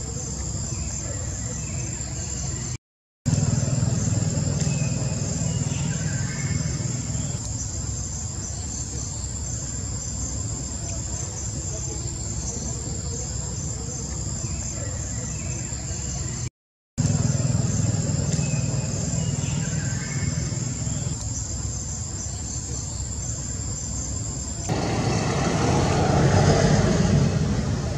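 Outdoor ambience: a steady high insect drone over a low rumble, with a few faint short chirps. The sound cuts out twice for a moment; about 25 s in the drone stops and a louder, rougher noise takes over.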